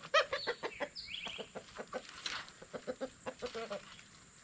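Chickens clucking in a rapid run of short calls, with a short high squawk about a second in; the clucking thins out and fades near the end.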